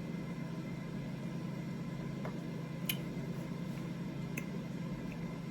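Air fryer running with a steady low hum, with a few faint clicks.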